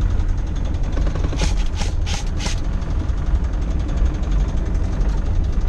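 Engine and drivetrain drone of a military four-wheel-drive vehicle heard from inside the cabin as it drives along a gravel track. About a second and a half in there are four short, sharp hissing bursts in quick succession.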